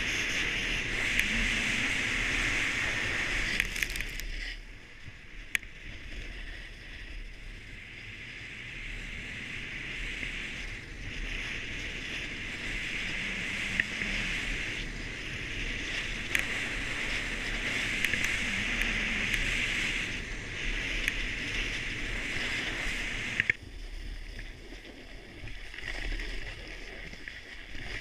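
Snowboard base and edges sliding and carving over packed snow: a steady scraping hiss that swells and eases with the turns. It drops off for a few seconds about four seconds in, returns, and drops again near the end.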